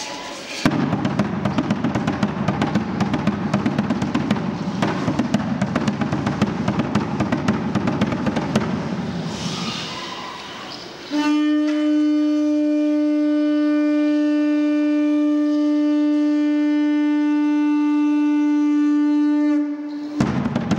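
Fast drumming with rattling for about ten seconds, fading out. Then a conch-shell trumpet is blown in one long, steady, loud note of about nine seconds, stopping near the end.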